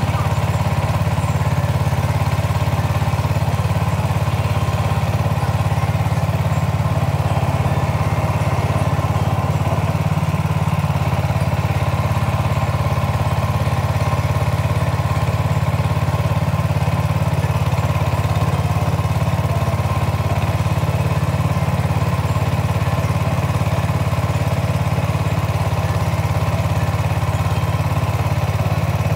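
A small boat's engine running steadily at constant speed, a continuous low hum with no change in pitch or level.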